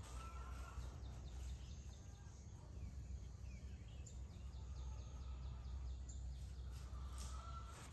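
Faint rural outdoor ambience: a few short bird calls and a faint run of rapid chirps from birds or insects over a steady low rumble.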